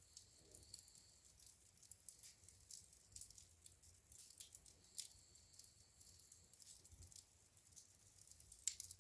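Faint crackling of a wood fire in a fireplace: many small, irregular pops and snaps, with slightly stronger ones about five seconds in and near the end.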